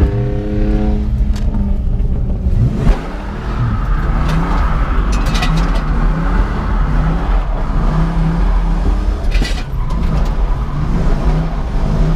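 1995 Ford Mustang GT's 5.0 V8, through a louder-than-stock exhaust, heard from inside the cabin revving up and down while doing donuts to warm the tires, with a hiss of tire noise under it. A few sharp clacks come around the middle and again later on.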